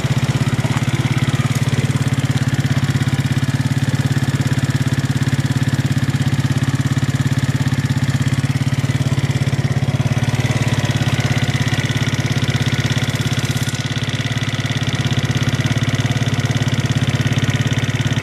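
Hyosung GT125 motorcycle's 125 cc V-twin engine idling steadily, with the abnormal engine noise the seller lists it as having.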